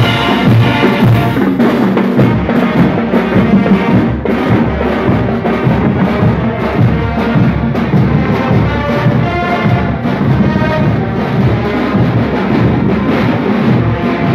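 School marching band playing while on the march: snare drums, bass drums and crash cymbals beating a steady rhythm, with brass playing a melody over them.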